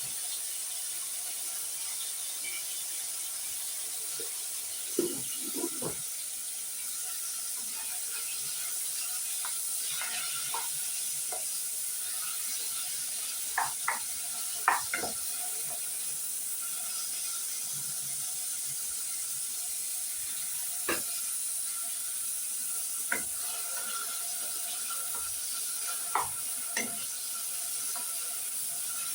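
Chopped onion sizzling in hot oil in a cooking pot, a steady hiss, with a few scattered clinks and scrapes of a spoon stirring against the pot.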